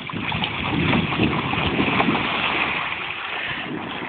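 Water splashing and sloshing around an inflatable water-walking ball as a child inside rolls it across a pool. The sound swells about a second in and eases off toward the end.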